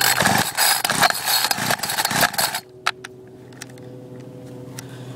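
Homelite two-stroke string trimmer being pull-started: a rough, noisy couple of seconds of recoil-starter cranking with a few stronger strokes, then it stops abruptly without the engine catching. The trimmer is failing to start, and its owner later suspects it is flooded.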